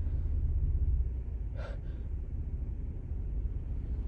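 A woman's short, sharp gasping inhale about a second and a half in, as an allergy sneeze builds, over a steady low rumble.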